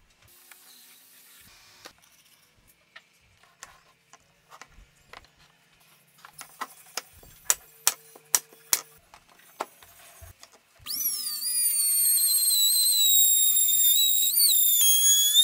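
Scattered sharp knocks and clicks of wooden boards being set in place. About eleven seconds in, a compact trim router starts with a loud high whine and runs along a wooden board, its pitch dipping briefly near the end.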